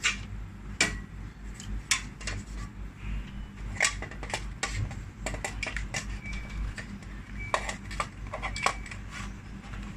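Irregular light metallic clicks and knocks as an installer handles metal parts and tools, over a steady low hum.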